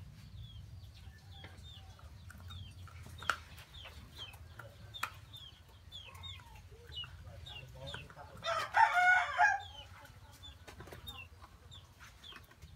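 Chickens: repeated short high peeps and chirps, with one loud chicken call lasting about a second, about nine seconds in.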